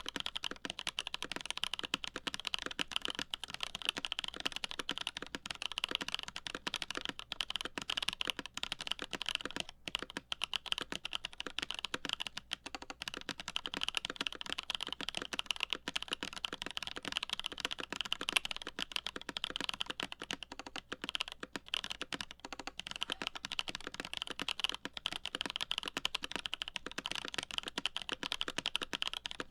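Continuous fast typing on a CA66 mechanical keyboard with lubed Holy Boba tactile switches, an aluminum plate and GMK keycaps: a dense, even stream of key clicks.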